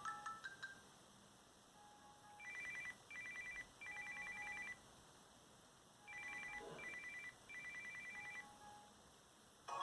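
Samsung Galaxy Y phone ringtone imitating an old telephone ring: a high two-tone trill sounding in three short rings, a pause, then three more. The last notes of a rising melody die away at the very start.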